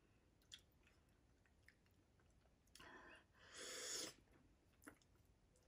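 Faint eating sounds: a person chewing instant noodles, with a few light fork clicks and two short, airy mouth sounds about three and four seconds in.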